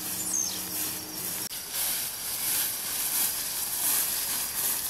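Steady outdoor hiss with tall grass swishing as two people walk through it. A faint steady hum stops abruptly about a second and a half in, and a short falling chirp sounds near the start.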